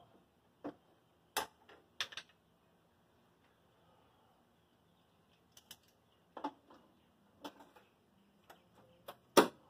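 Irregular sharp clicks and light metallic knocks from hand tools being worked against the car's body and wheel-arch metal, with short gaps of quiet between them. The loudest knock comes near the end.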